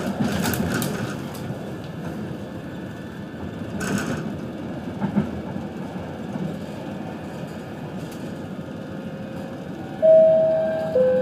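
Copenhagen Metro train running on the track with a steady rumble, its wheels clicking over switches at the start and again about four seconds in. Near the end a loud two-note falling chime sounds on board.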